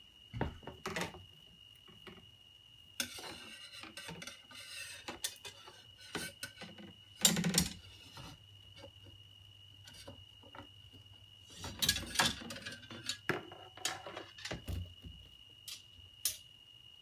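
Metal parts of a homemade quarter-wave ground plane antenna being handled and adjusted: irregular clinks, knocks and scraping, with longer bouts of rubbing about three seconds in, near the middle, and about twelve seconds in. A faint steady high tone runs underneath.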